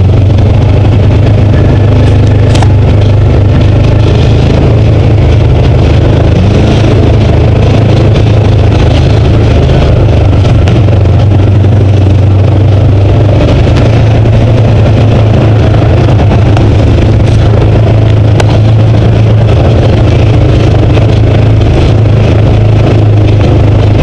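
Side-by-side UTV engine running steadily under way on a dirt trail, loud and low-pitched, with a few brief sharp knocks.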